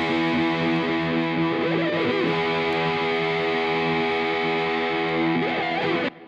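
Outro music on distorted electric guitar: a held chord with wavering, bent notes over it, cutting off sharply near the end and leaving a short fading ring.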